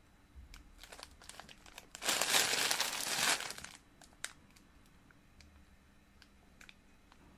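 Crinkling of plastic packaging being handled, loudest for about two seconds near the middle, with scattered light clicks and taps before and after.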